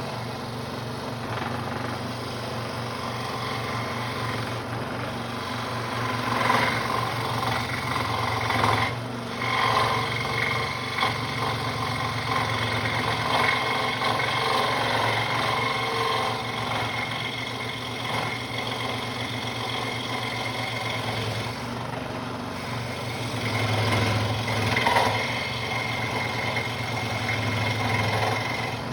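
Central Machinery scroll saw cutting wood: the motor's steady hum under the blade's fast reciprocating buzz, with the rasp of the blade through the wood swelling and fading as the cut goes on.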